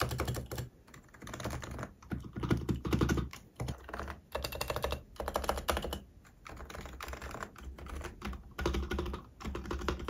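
Typing on a Topre-style electrostatic capacitive keyboard: a dense run of soft keystrokes, with large keys such as the spacebar among them, broken by a few short pauses.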